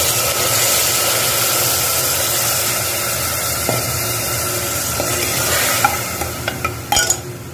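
Water poured into a pressure cooker onto hot fried masala, drumsticks and potatoes, hissing and sizzling. Near the end a metal ladle stirs the curry, clinking a few times against the cooker.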